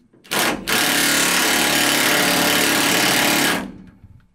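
A handheld cordless power tool gives a short blip, then runs at full speed in one steady burst of about three seconds before winding down.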